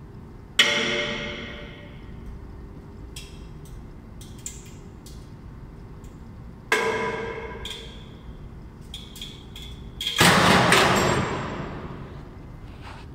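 5-tonne ratchet lashing strap under load on a tensile test machine: two sharp metallic bangs with ringing, about six seconds apart, as the load slips and jumps. About ten seconds in comes a louder, longer crack and rush as the lashing breaks at about 5.4 tonnes-force, over a steady low hum.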